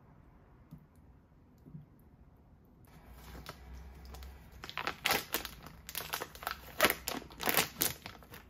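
Plastic vacuum pack of sliced raw ham crinkling as it is handled. A fast run of crackles starts about three seconds in and is loudest in the last few seconds.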